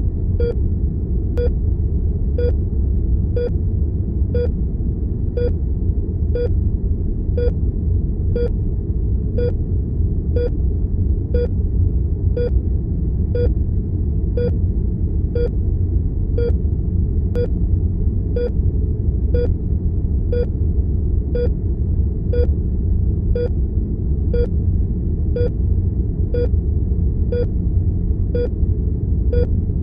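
Heart monitor beeping steadily about once a second, each beep short and pitched, over a steady low rumble of room tone.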